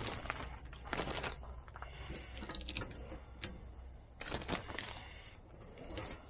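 Plastic Ziploc freezer bag crinkling as pieces of smoked salmon are pulled off a wire smoker grate and bagged, with small clicks and taps of handling. The rustles come in short bursts, the loudest about a second in and again after four seconds.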